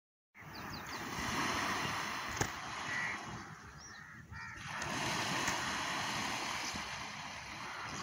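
Steady wash of small waves on a sandy beach, with wind noise on the microphone, starting abruptly. A few short bird calls come through near the start and the end.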